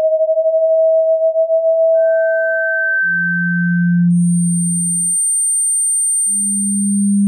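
Tinnitus-relief sound-therapy tones: a sequence of pure sine tones that jump between pitches, each held for about two to three seconds and overlapping at the changes. A mid tone that wavers in loudness gives way to a higher one, then a low hum, then a very high thin whistle, and a low tone comes back near the end.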